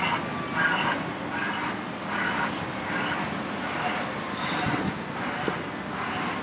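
Hitachi ZX870 excavator's diesel engine running as the machine slews, with a broadband 'white noise' reversing alarm pulsing in short hissy beeps a little faster than once a second, fading after about four seconds.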